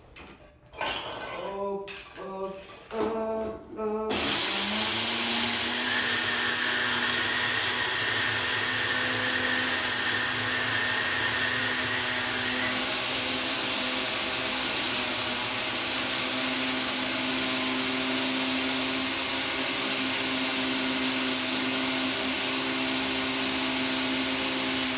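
Electric countertop blender switched on about four seconds in, its motor rising quickly to speed and then running steadily as it blends fruit for a drink.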